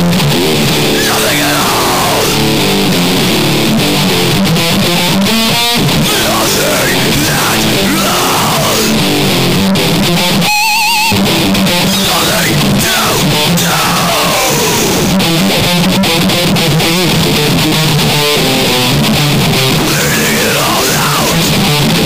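Heavy metal music with electric guitar, dense and loud, with a brief break in the sound about halfway through.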